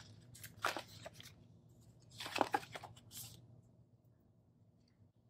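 Paper sticker sheets rustling and crinkling as they are handled and leafed through, in a few short strokes over the first three seconds or so.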